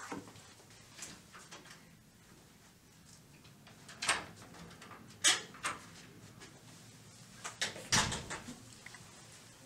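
An office door's lever handle and latch clicking as the door is opened and shut: a handful of sharp clicks and knocks, the loudest about five seconds in and a heavier knock about eight seconds in.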